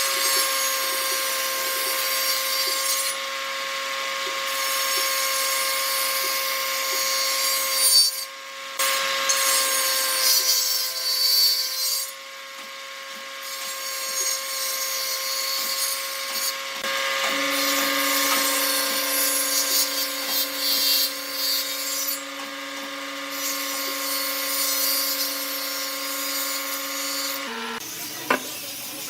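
Wood lathe motor running with a steady hum while a turning tool scrapes and cuts the spinning wood, the hissing cut stopping briefly several times as the tool comes off the work. The sound changes abruptly shortly before the end.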